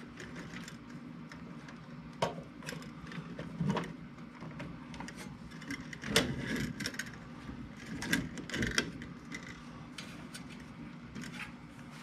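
Scattered clicks, taps and rustles of electrical wires and hand tools being handled while wiring a relay box, over a steady low hum.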